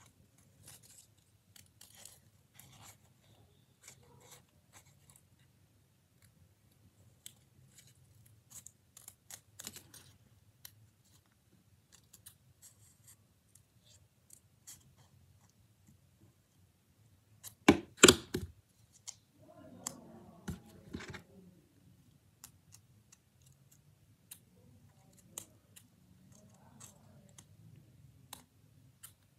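Scissors snipping paper in short, irregular cuts, with light paper rustling. About 18 seconds in comes a brief loud clatter, followed by a few seconds of paper handling.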